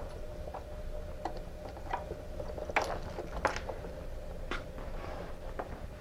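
Small irregular clicks and taps of a cable being handled and fed through a trolling motor's coiled cord, over a faint steady hum.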